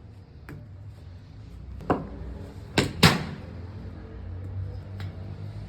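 Cricket ball and bat in practice: a few sharp knocks as the ball bounces and is struck, the loudest two close together about three seconds in.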